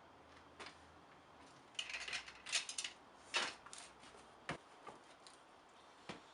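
Light metallic clinks and clicks of bolts and hand tools being handled: a quick cluster of clinks from about two to four seconds in, then a few single clicks.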